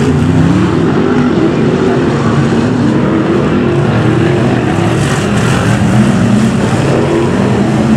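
Several BriSCA F1 stock cars' V8 engines racing together, a loud continuous blend of engine notes rising and falling as the cars accelerate and ease off around the oval.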